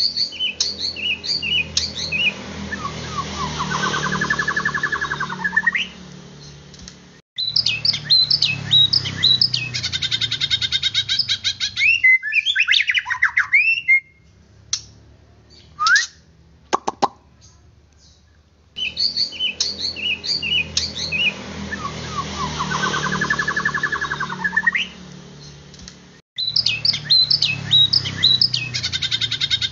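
White-rumped shama song: bursts of varied whistles, rapid trills and gliding notes with short pauses between them. The same sequence repeats itself exactly after about 19 seconds, a looped recording of the kind played to provoke shamas into singing.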